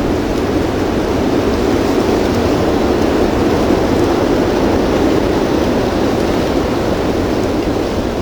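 Strong blizzard wind blowing steadily, a continuous rushing noise with a low rumble of wind buffeting the microphone.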